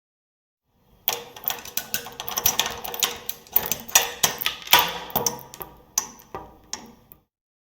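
Door hardware worked by hand: a fast, irregular run of sharp clicks, knocks and rattles from a lock, latch and handle for about six seconds, then it stops abruptly.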